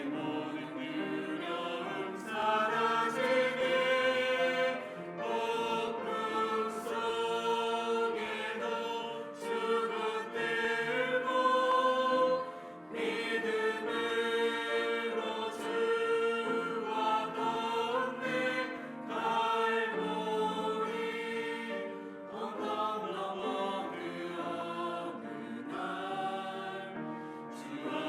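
Church praise choir singing a worship song, many voices in sustained, held notes.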